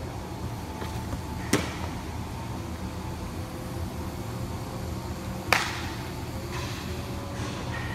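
A thrown baseball pops into a leather catcher's mitt about a second and a half in. About four seconds later comes a louder, sharper pop as the return throw smacks into the pitcher's glove. A steady hum runs underneath.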